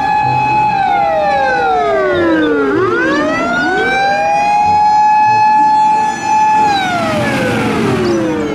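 Japanese fire engine's siren wailing: it holds a high note, slides down about three seconds in, rises back and holds, then slides down again near the end, with a second overlapping wail slightly out of step.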